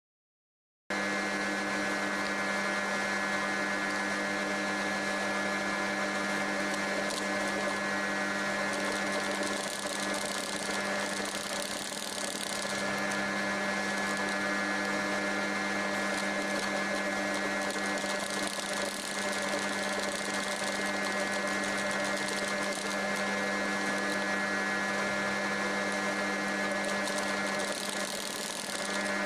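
Sewing machine running steadily as it stitches around the edge of a leather coaster, its motor humming under the rapid stitching. It starts about a second in, with brief dips about twelve seconds in and near the end.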